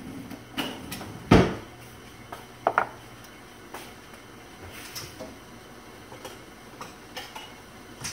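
Kitchenware being handled: scattered knocks and clinks, the loudest a sharp knock about a second in, a quick double clink near three seconds, then lighter clicks.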